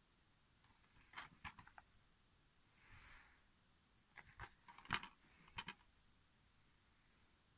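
Plastic DVD case being handled and turned over: faint light clicks and taps, a soft brushing sound about three seconds in, then a cluster of sharper clicks and knocks between about four and six seconds in.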